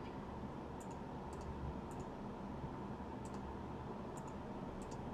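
Faint, irregular clicking at a computer, about nine light clicks scattered through, over a steady low hum.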